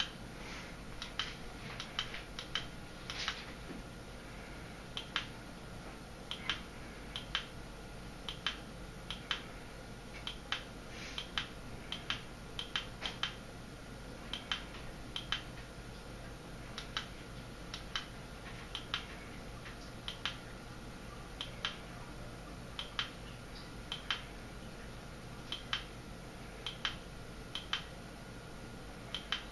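Sharp plastic clicks, singly and in quick pairs, about once a second, from the buttons of the LED strip's handheld remote being pressed to change the light colour. A faint steady hum lies beneath.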